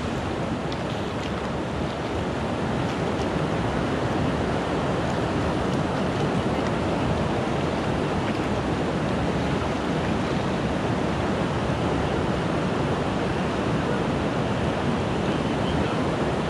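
River water rushing steadily over a shallow gravel riffle, a constant even hiss.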